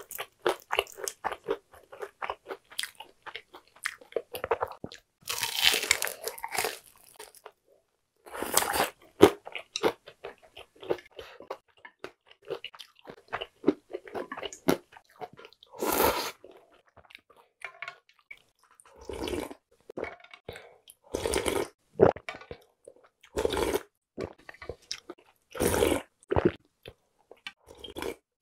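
Close-miked chewing of crispy deep-fried breaded food, a dense run of rapid crunches for the first several seconds. After that come separate louder bursts every couple of seconds, which are slurps of cold buckwheat soba noodles and broth.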